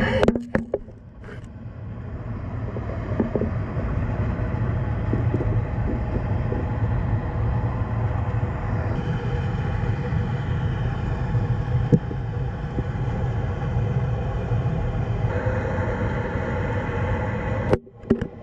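Steady low rumble of turbulent dam tailwater heard underwater through a submerged action camera, with a few knocks in the first second and a single sharp knock about twelve seconds in.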